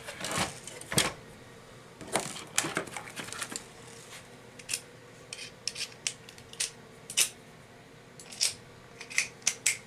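Irregular small clicks, scrapes and rubbing of plastic parts and cable being handled as a Zebra ZD500 label printer is taken apart to free the screen's wire, over a faint steady hum.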